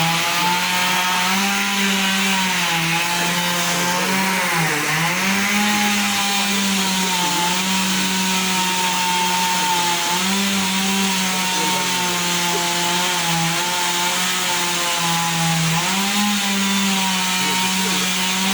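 Chainsaw running at high speed while cutting a tree, its engine note sagging and recovering as the chain bites into the wood, with a deep dip about five seconds in and again near the end.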